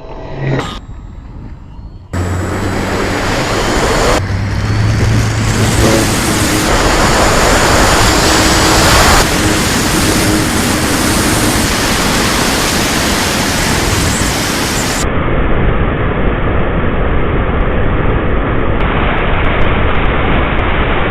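Electric FMS P-40 Warhawk RC plane in flight: a loud rush of wind and propeller noise with a faint motor hum, the sound changing abruptly several times as the recording cuts between cameras.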